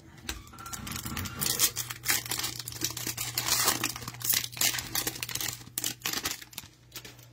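Trading card pack wrapper being torn open and crinkled, a dense run of irregular crackling and rustling.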